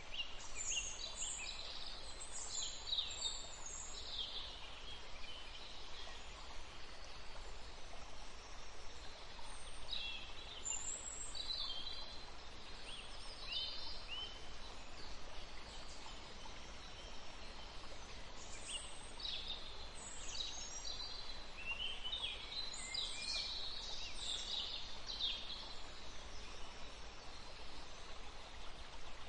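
Small birds chirping in several bursts of quick, high chirps, over a steady background hiss.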